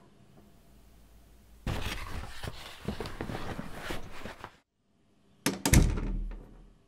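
Cardboard parcel boxes picked up and handled, rustling and scraping for about three seconds. Near the end a wooden apartment door swings shut with a few knocks and one heavy thud.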